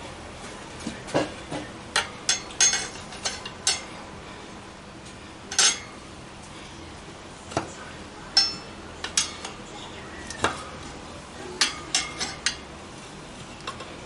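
Metal tyre levers clinking and scraping against a motorcycle wheel rim as the front tyre bead is levered on by hand: a dozen or so sharp, irregular metallic clanks, a few ringing briefly.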